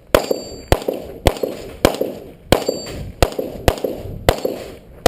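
Rapid gunshots, about eight at a steady pace of roughly one every half second or so, each followed by the clang of a bullet striking a steel target plate.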